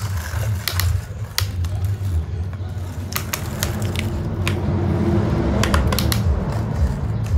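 Sharp plastic clicks and knocks from a toy excavator's arm and bucket being worked by hand, scooping sand into a plastic toy dump truck, more frequent in the second half, over a steady low rumble.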